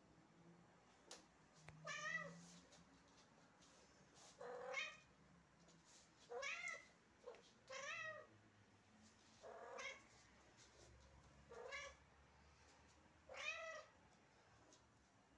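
Domestic cat meowing over and over, seven meows about two seconds apart, each rising then falling in pitch: a hungry cat begging for food.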